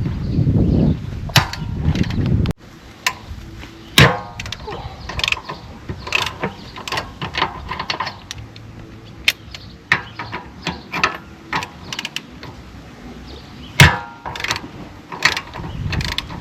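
A low rumble that cuts off abruptly, followed by scattered, irregular mechanical clicks and knocks, two of them much louder than the rest.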